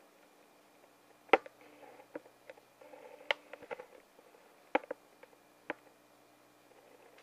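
Irregular sharp clicks and light knocks of hard plastic being handled around the printer's raised lid, about eight in all, the loudest about a second and a half in.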